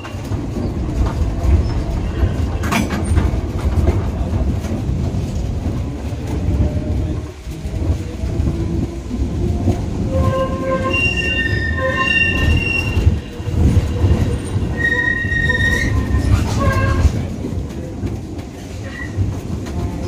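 Vintage museum tram running on rails with a steady low rumble. In the second half the wheels squeal several times in high, drawn-out tones.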